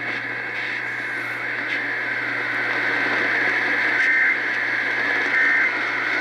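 Steady radio static hiss from a received station, with three short data-tone bursts about a second apart in the second half. These are the Emergency Alert System end-of-message (EOM) tones that close an alert.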